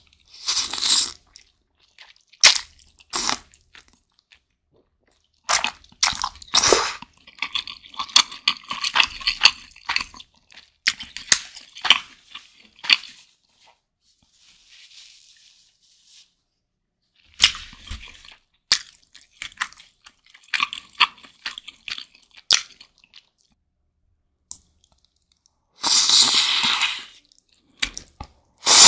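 Close-miked eating of spicy instant noodle soup with sliced meat. Noodles are slurped about a second in and again, longer, near the end, with wet chewing and clicking mouth sounds in between.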